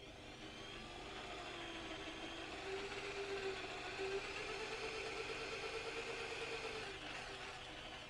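Electric drill running with a twist bit boring into a wooden window frame. The steady motor whine grows louder over the first few seconds, wavers slightly in pitch as the bit cuts, and eases off near the end.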